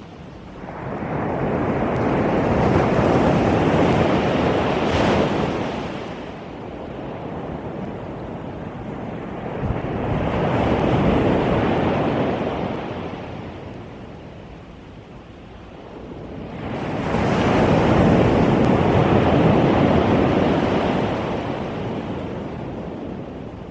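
Ocean waves breaking and washing up a pebble beach, three waves in turn, about every seven seconds, each swelling and then fading; the first has a sharper crash at its peak.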